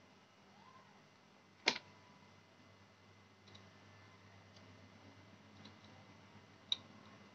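Small clicks and taps of a knife peeling shallots over a plastic bowl: one sharp click about a second and a half in, then a few faint ticks spread through the rest.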